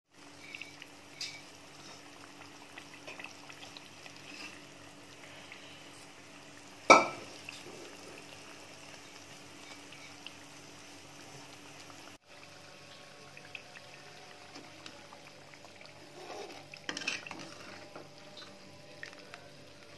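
Butter frothing and bubbling in a steel pan as it cooks down into ghee, with a faint crackle under a steady hum. A steel ladle taps and scrapes against the pan, with one sharp clank about seven seconds in and a brief burst of scraping near the end.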